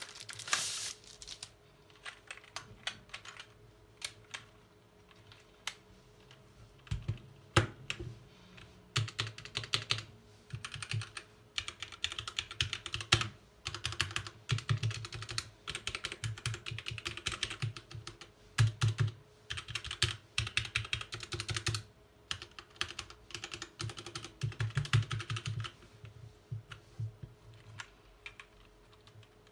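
Typing on a Gateron-switch mechanical keyboard: fast runs of clacking keystrokes with pauses and scattered single key presses between them.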